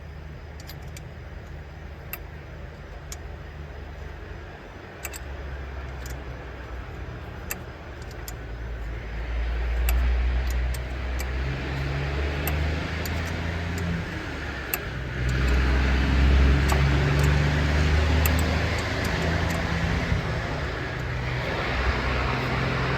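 A motor vehicle's engine runs with a low hum and gets louder about ten seconds in and again about fifteen seconds in. Scattered light clicks sound over it in the first half.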